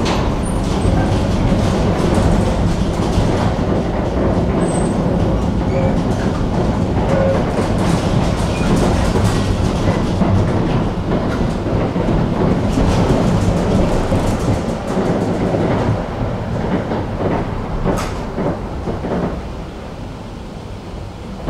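Tram running along the track, heard from inside the passenger car: a steady rumble of wheels on rails with scattered clicks over rail joints. It grows quieter over the last few seconds as the tram slows for a stop.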